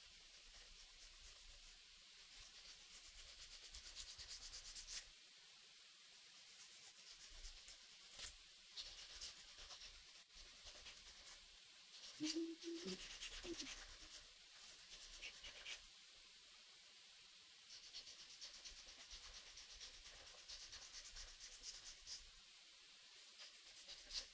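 Faint hand sanding: rapid scratchy rubbing strokes of abrasive on a knife handle, in spells of a few seconds with short pauses between them.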